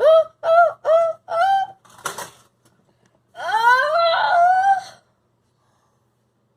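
A voice acting out crying: four quick high sobs, a noisy breath, then one long rising wail.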